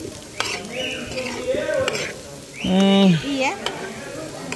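Small whole potatoes sizzling in hot oil in a frying pan while being stirred with a spatula, with a few clicks of the utensil against the pan. A brief voice sound comes over it about two-thirds of the way through.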